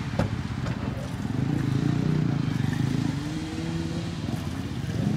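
Motocross bike engines running, with one engine rising in pitch as it accelerates around the middle.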